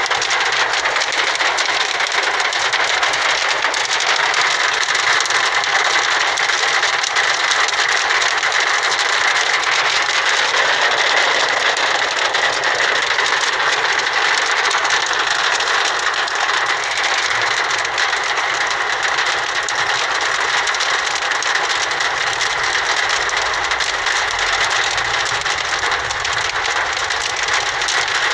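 Heavy hail pelting down, a loud, dense and unbroken clatter of hailstones striking surfaces.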